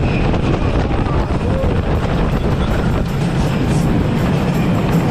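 Wooden roller coaster train running along its track: a steady, loud rumble.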